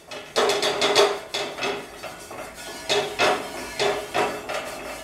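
Bristles of an oil brush scrubbed back and forth over a hot iron dosa griddle (tawa), greasing it before the batter goes on: a quick series of scraping strokes.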